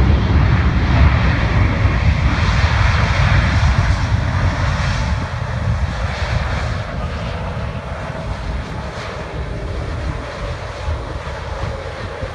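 Airliner passing low overhead on its landing approach. Its loud engine rumble and rushing noise are strongest in the first few seconds, then slowly fade as it moves away.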